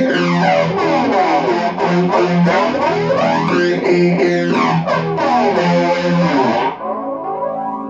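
Electric guitar played through effects pedals, with a slow sweep that rises and falls about every four seconds over repeated notes. It gets quieter near the end.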